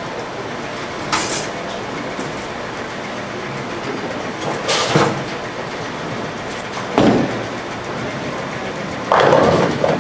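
Bowling alley din: the steady rumble of balls rolling down the lanes, with clattering pin hits from other lanes. A ten-pin bowling ball thuds onto the lane about seven seconds in, and a loud crash of pins follows about two seconds later.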